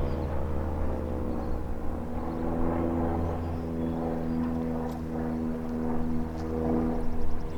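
Federal Signal 2001-SRN electromechanical warning siren winding down at the end of its test, its falling tone sinking and fading over the first couple of seconds. Under it runs a steady low mechanical drone.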